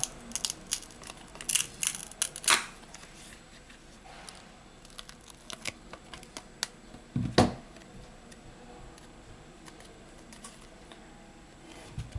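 Plastic back cover of a Samsung Galaxy A70 being peeled off its adhesive by hand: quick clicks and crackle of the glue tearing loose, mostly in the first three seconds. One louder knock comes about seven seconds in, with a few small handling clicks after.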